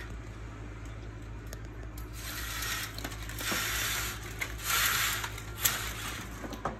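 Vertical window blind vanes rustling and clacking against each other as they are pushed aside. There are several rustling bursts, with sharp clicks scattered among them.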